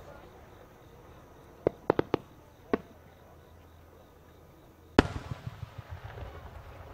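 Aerial fireworks shells bursting: a quick cluster of five sharp bangs about two seconds in, then one much louder boom about five seconds in that rolls on in echoing rumbles.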